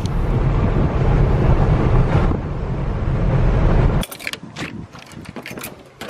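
A loud low rumble for about four seconds that cuts off suddenly, then a bunch of keys jangling and clicking in a front-door lock as the door is unlocked.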